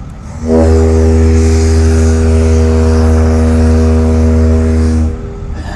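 Battleship Texas's ship whistle, sounded on compressed air, gives one long steady blast of about four and a half seconds that starts and stops abruptly. Under it runs the hum of a window-unit air conditioner beside the microphone.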